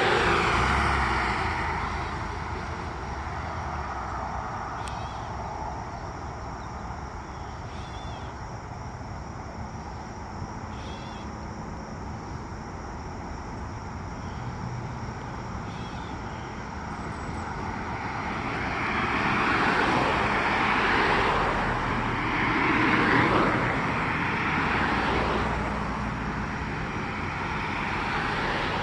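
Road vehicles passing close by: a swell of noise at the start, then a few more passing one after another in the second half, over a steady outdoor hum.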